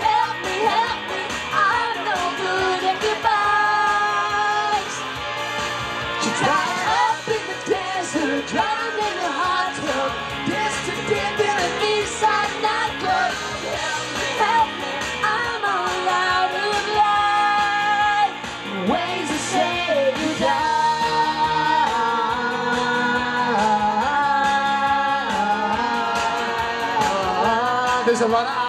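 Pop song performance: voices singing over an instrumental accompaniment, continuing without a break.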